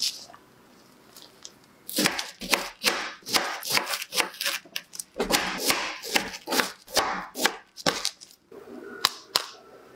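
A sharp click right at the start, then a knife cutting repeatedly through a frozen dessert block, a crisp, crunchy stroke about twice a second.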